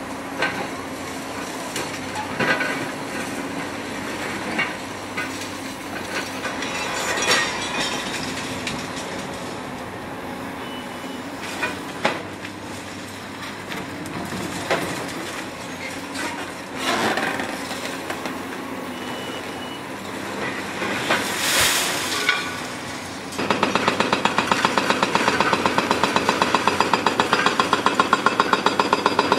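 Caterpillar excavators tearing down a reinforced-concrete bridge: engine running with irregular knocks and crunches of concrete and rebar as a demolition jaw bites into the deck. About 23 seconds in, an excavator-mounted hydraulic breaker starts pounding concrete in a fast, steady rhythm, louder than the rest.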